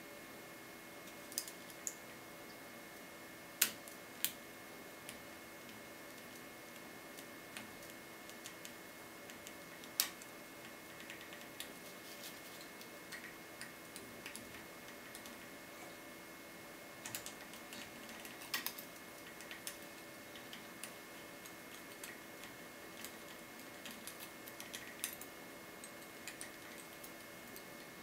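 Small, sharp clicks and ticks of a steel lock pick and tension wrench working the pin tumblers inside a brass Thirard Surveyor five-pin euro cylinder, coming irregularly, with a few louder clicks about 4 seconds in and again near 10 and 18 seconds.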